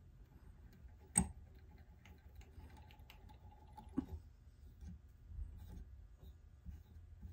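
Quiet handling at a fly-tying vise, with thread and materials being worked on a hook. A sharp click comes about a second in, a softer one around four seconds in, and faint ticks fall in between.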